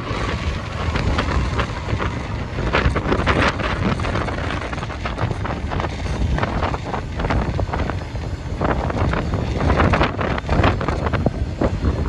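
A long freight train of enclosed car-carrier wagons rolling steadily past behind a Class 66 diesel locomotive, with heavy wind buffeting the microphone.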